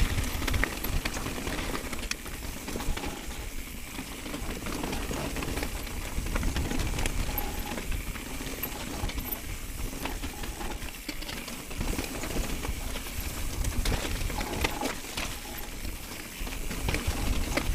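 Mountain bike riding fast down a rough, rocky trail, heard from an action camera on the bike or rider: wind rushing over the microphone, with tyres crunching over loose stones and the bike rattling in many small clicks.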